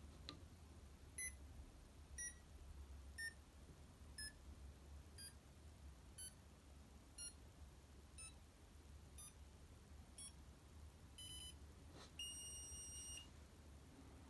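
BEEP base hive-scale electronics beeping as it is switched off with its activation magnet. About ten short beeps come one a second, then a quick flurry of beeps, then one long beep lasting about a second.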